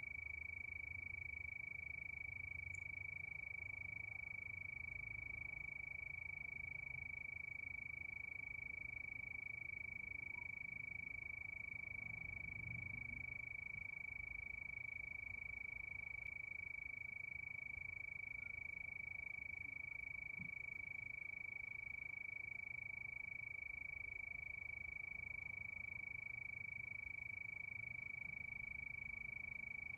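Night chorus of crickets trilling steadily at one high pitch.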